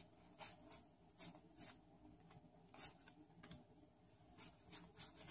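Faint, short swishes and ticks of Yu-Gi-Oh! trading cards being slid and flipped one by one in the hand, about eight to ten at irregular intervals.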